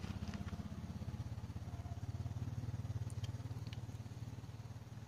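Anaesthetised Rottweiler bitch making a low, rapidly pulsing rattle in her throat, swelling in the middle and easing off. Two faint clicks near the middle.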